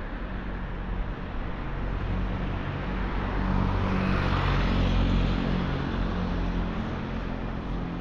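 A motor scooter passing close by: its engine noise swells to a peak about halfway through, then fades, over steady street traffic.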